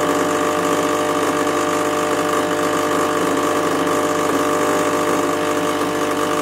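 Espresso machine pump humming steadily as espresso pours from the portafilter spout: the machine is mid-extraction.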